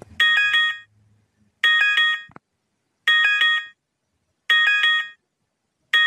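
Digital alarm clock going off: groups of quick, high electronic beeps, each group lasting under a second and repeating about every one and a half seconds.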